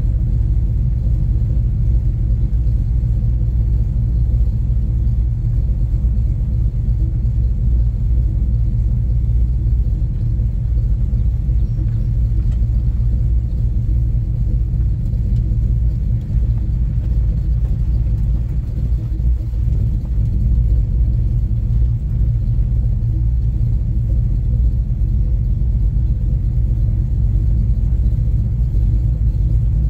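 A 1970 Chevrolet Chevelle's engine and exhaust running steadily, the sound lying low and even with no revving or gear changes.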